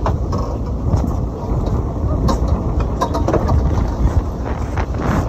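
Sportfishing boat's engines rumbling steadily, mixed with wind buffeting the microphone, with a few light knocks.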